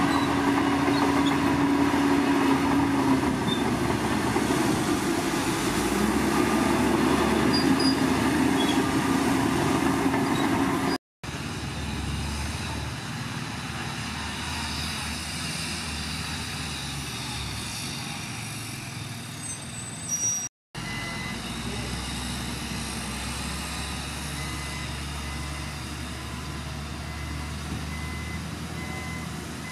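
Heavy diesel earthmoving machinery running, with a steady engine tone that is loudest in the first ten seconds or so. The sound cuts out abruptly twice, and the engine noise is quieter after that. From about twenty-two seconds in, a reversing alarm beeps at an even pace.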